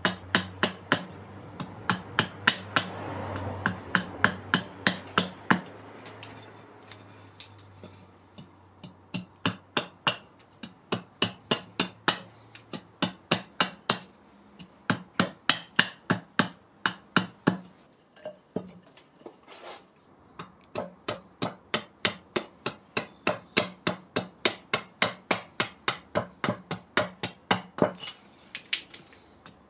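Small carving axe chopping a wooden spoon blank braced on a chopping stump. The chops are quick and steady, about two to three a second, with a short pause about two-thirds of the way through.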